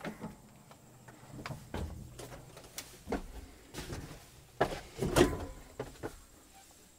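Kioti DK4210 tractor's cab door opened and a person climbing up into the cab and sitting down: a string of light clicks, knocks and shuffles from the door, the step and the seat, loudest about four and a half to five seconds in.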